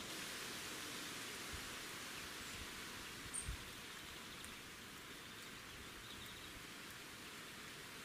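Steady outdoor background hiss, with one short high chirp and a couple of low knocks about three and a half seconds in.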